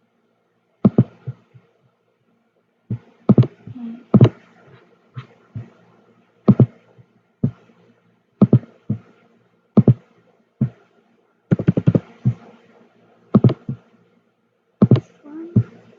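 Computer mouse clicks at irregular intervals, several in quick pairs like double-clicks, with a short run of rapid clicks about twelve seconds in.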